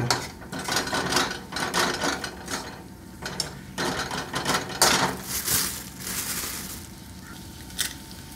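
Slotted steel spatula scraping and stirring frying masala in a steel kadhai, quick irregular metal-on-metal scrapes that slow and quieten after about five seconds. Near the end comes a single sharp tap as an egg is cracked with a knife over the pan.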